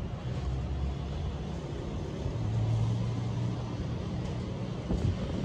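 Steady low rumble of city traffic, with a deeper hum swelling for a second or so around the middle.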